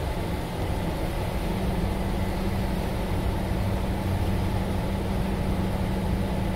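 Car ferry's engines running as it comes in to the berth, a steady low drone with a hum that strengthens about a second and a half in.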